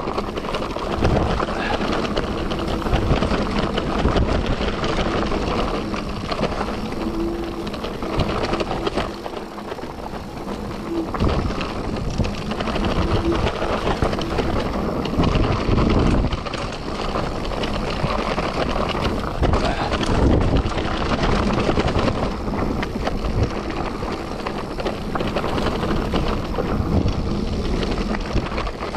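Mountain bike ridden along a wet trail: tyres rolling over the ground with a constant clatter of small knocks and rattles from the bike, and wind buffeting the microphone.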